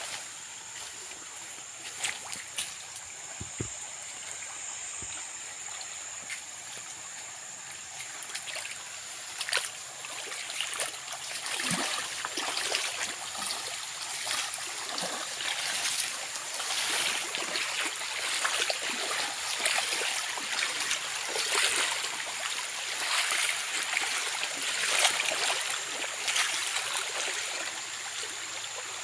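Forest stream flowing and trickling, growing louder about ten seconds in.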